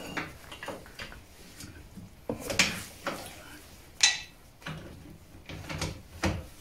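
Metal clanking and knocking of tools against the steel chassis and front suspension parts: several sharp, irregular strikes, the loudest about four seconds in.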